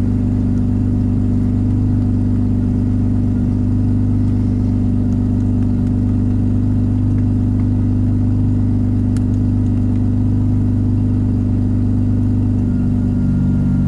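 Mazda RX-7 FD3S's 13B-REW twin-turbo rotary engine idling steadily at about 1500 rpm while still cold, heard from inside the cabin. It is running rich, around 10.5 to 10.7 air-fuel, dumping in extra fuel.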